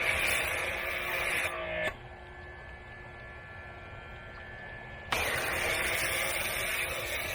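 Pressure washer running and spraying soap foam. The spray stops about two seconds in, leaving a fainter steady hum, then starts again abruptly about five seconds in, as the trigger is released and pulled again.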